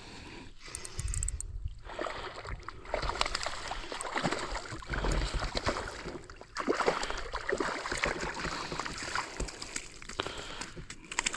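Water sloshing and splashing, with scattered small clicks and knocks.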